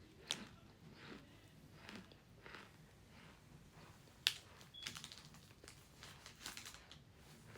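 Faint, close crunching and chewing of a chunk of flavoured cornstarch: soft crunches about twice a second, with a couple of sharper clicks, one of them loudest a little past the middle.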